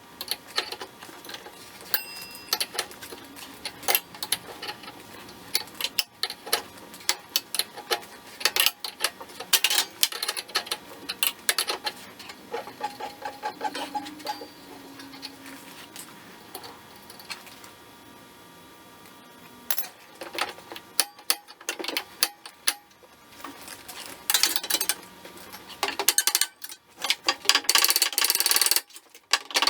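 Hand ratchet wrench clicking in quick runs as bolts are worked loose, mixed with metal tool knocks and clinks.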